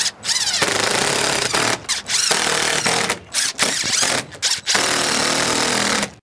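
Cordless impact driver driving screws through a plastic rub rail base strip into a boat hull, in several runs of a few seconds separated by short pauses. The motor whine climbs as each run starts.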